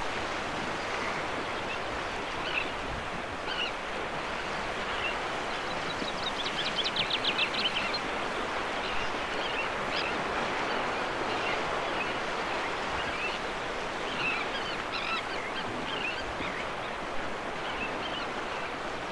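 Steady wash of choppy estuary water and small waves, with scattered Sandwich tern calls and a common chaffinch's song in the background; a rapid trill stands out about six seconds in.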